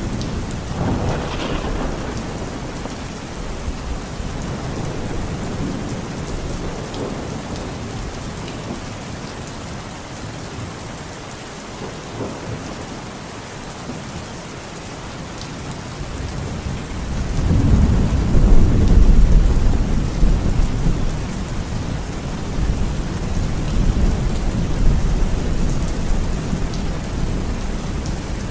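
Heavy rain pouring steadily, with thunder. A rumble comes about a second in, and a louder roll of thunder builds a little past halfway, peaks, then rumbles on more softly to the end.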